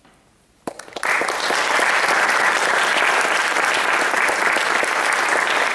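Audience applauding: a few separate claps just under a second in, then full, steady applause.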